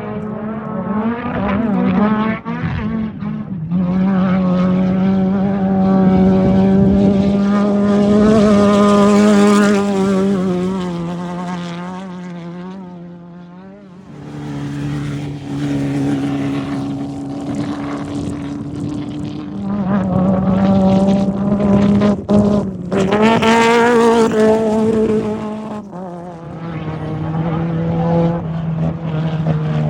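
Off-road race vehicles' engines running at high revs as they pass one after another. The first is loud for several seconds and fades about thirteen seconds in, then another comes up loud at a lower pitch.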